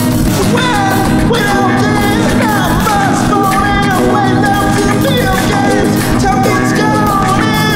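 A loud, steady experimental rock track playing.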